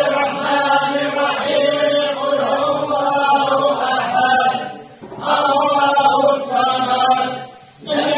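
A group of men chanting together in unison, in long drawn-out phrases with brief breaks about five seconds in and near the end.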